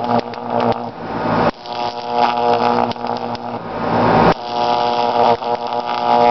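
High-voltage arc from a pole-pig distribution transformer buzzing harshly as it is drawn across a small electronic component. The buzz breaks off and strikes again abruptly a couple of times.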